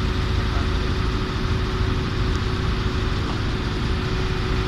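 Excavator's diesel engine running steadily as it works to pull a stuck truck out of the mud: a low rumble with a steady hum held at one pitch above it.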